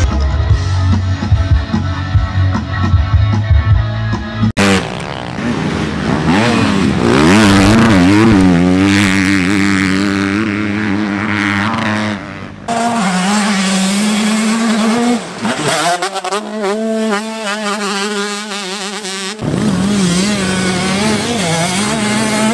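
Loud music with a heavy bass beat for about the first four and a half seconds, then cuts to several dirt bike engines revving, their pitch rising and falling as the riders throttle through deep sand. The engine sound changes abruptly a few times.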